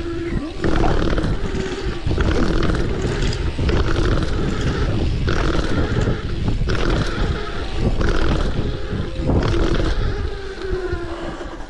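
Wind rumbling and buffeting on the microphone while riding a bike, the level rising and falling in gusts, with road and tyre noise underneath.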